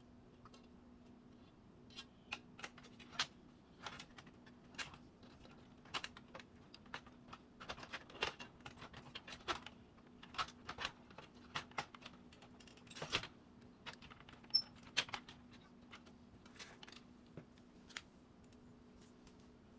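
Irregular small clicks and taps of hands handling a laser printer's plastic and metal parts during disassembly, in uneven clusters, over a faint steady hum.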